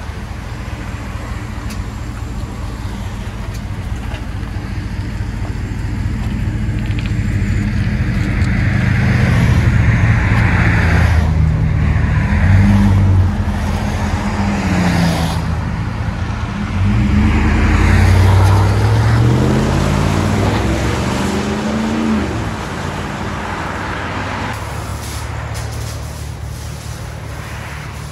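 Chevrolet Tahoe's 5.3-litre V8 through an aftermarket exhaust, idling, then revved up twice with the pitch rising and falling each time, before settling back to idle.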